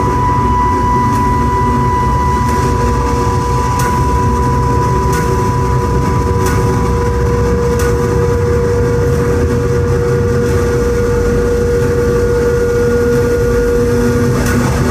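Loud live electronic noise music from a laptop and synthesizer: a dense, rumbling drone with a held high tone, joined a few seconds in by a lower held tone that carries on almost to the end. Faint clicks repeat about every second and a bit.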